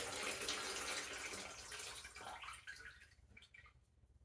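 Water poured into a sink basin and running down the drain in a steady splashing rush that fades out about two to three seconds in. This is a leak test of a newly fitted P-trap.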